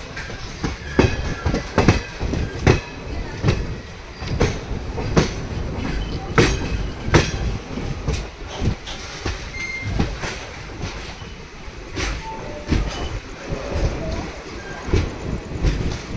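Passenger train coach wheels clattering over rail joints and crossovers: an irregular run of sharp knocks over a continuous rolling rumble, heard from the coach doorway.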